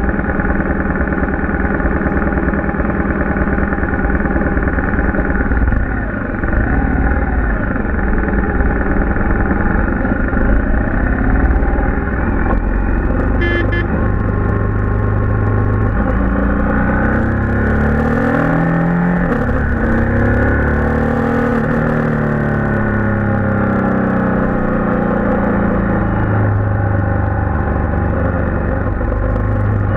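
Motorcycle engine running on a winding descent, its note rising and falling again and again through the second half as the revs change through the bends.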